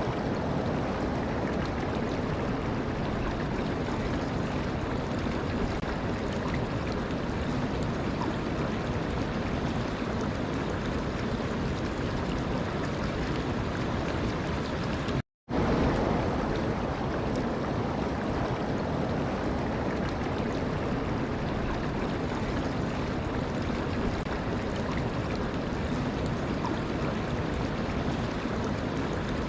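Steady rushing of flowing water, with a sudden silent gap lasting a fraction of a second about halfway through.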